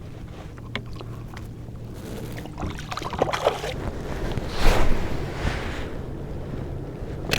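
Water splashing and sloshing around a kayak, with wind on the microphone, building to a loud burst of splashing about four and a half seconds in. A steady low hum runs underneath.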